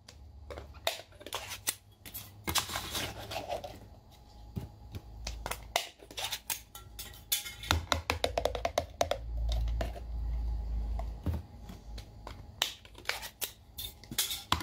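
A glass jar of marinated seafood is handled, opened and tipped out onto a platter: many short clicks and taps of glass and hands, with a denser rumbling passage midway as the contents slide out.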